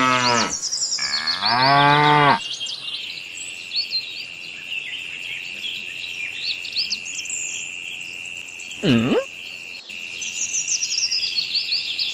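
A cow moos twice, two long calls in the first couple of seconds. Then crickets trill steadily with birds chirping over them, and there is one brief call about nine seconds in.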